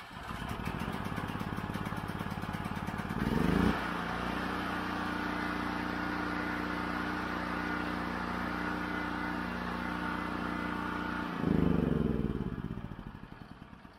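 Generac GP8000E portable generator's 420cc single-cylinder engine, just started cold on the choke. It picks up speed with a brief rise in pitch about three and a half seconds in, then runs steadily. About eleven and a half seconds in it is switched off and winds down to a stop.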